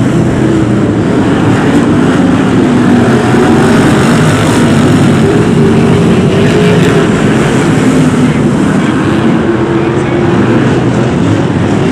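A pack of BriSCA F1 stock cars with big V8 engines racing together: a loud, continuous drone of several engines whose pitch rises and falls as they rev.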